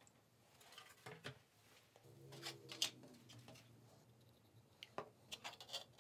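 Faint clicks and scraping rub of hard 3D-printed plastic RC wing parts being handled and set on a bench, in a few short clusters; the sharpest click comes about three seconds in.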